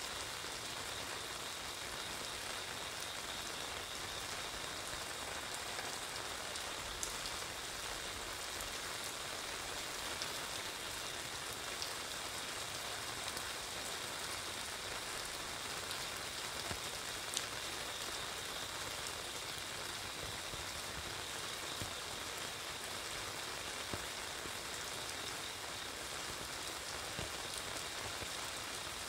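Steady rain falling on a wet street and pattering on an umbrella overhead, with a few sharper drip ticks now and then.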